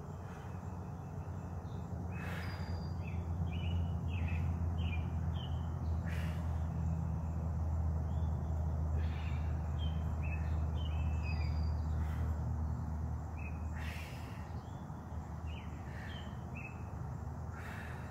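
Outdoor ambience: songbirds calling in short repeated phrases over a low rumble that swells a couple of seconds in and fades away about three-quarters of the way through.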